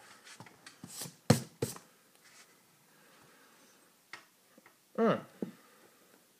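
A few sharp clicks and taps of something being handled, about a second in and again near four seconds, then a short vocal sound falling in pitch about five seconds in.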